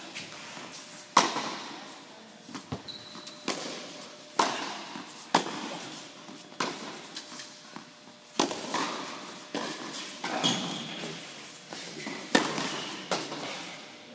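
Tennis balls struck by rackets and bouncing on an indoor hard court: a string of sharp pops, about one a second, the loudest about a second in, each echoing in the large hall.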